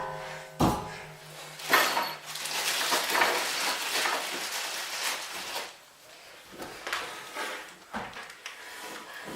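Knocks and metallic clattering of tools and hardware while the screws are driven to fasten the hay-hoist trolley rail to the barn beam: a few sharp knocks in the first second, then a longer stretch of rattling clatter.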